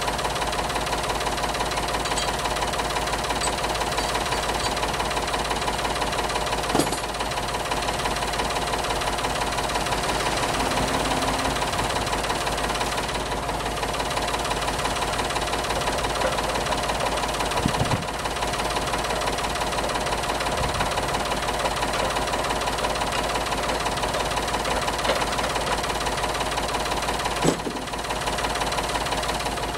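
Tractor engine idling steadily, with three brief knocks spread through it.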